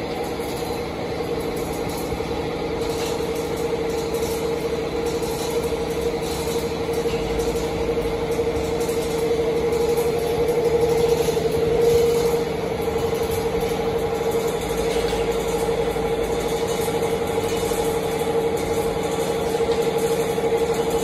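Hydraulic power unit of a multi-layer plywood hot press running: a steady, even whine over a low machine hum, a little louder about eleven to twelve seconds in.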